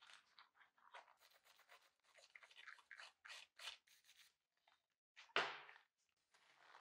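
A small hand wire brush scrubbing a small steel part of an antique paper punch in quick, short strokes, scraping off the rust and old paint loosened by electrolysis. About five seconds in comes a louder splash as the part goes back into the basin of water.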